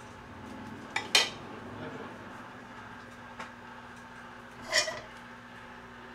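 Kitchenware clinking: wooden chopsticks knocking against a stainless steel noodle bowl and being set down, with two sharp clinks about a second in and another clatter near five seconds.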